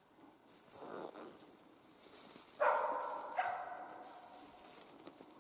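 A hunting laika barking twice, the barks under a second apart, each trailing off as it rings in the forest; a short rustle comes about a second in.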